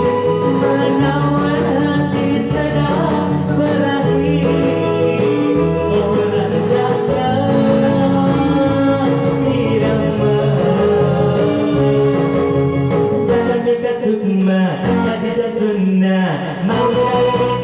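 A man singing a Malay pop song into a microphone over a karaoke backing track.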